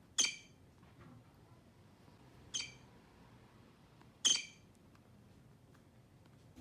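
A squeaking toy mouse, heard three times as short, sharp, high-pitched squeaks about two seconds apart, the first and last the loudest.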